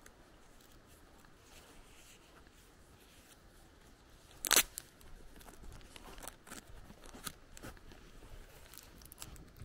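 Footsteps on a grassy dirt path, quiet at first, with one short, sharp crunch about halfway through, the loudest sound here, followed by a run of lighter irregular steps.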